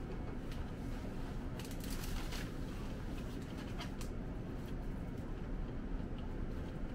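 Steady low room hum, with a few faint rustles and taps as a paper menu is handled and its pages turned.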